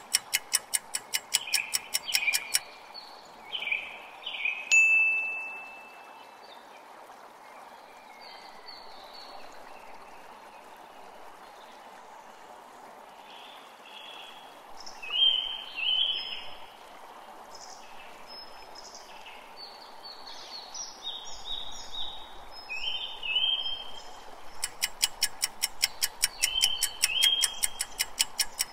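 Fast, steady ticking of a quiz countdown-timer sound effect stops a few seconds in. A single bright chime rings out, then birds chirp over a steady background wash. The ticking starts again near the end.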